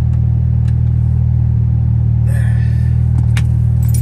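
Chrysler 300's engine idling steadily shortly after a cold start: a low, even rumble heard from inside the cabin. A brief rattle comes about two seconds in and a sharp click a second later.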